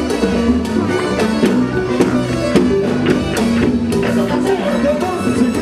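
Cuban timba band playing live: a driving salsa groove of percussion, bass and keyboards, with regular sharp strikes from the cowbell (campana).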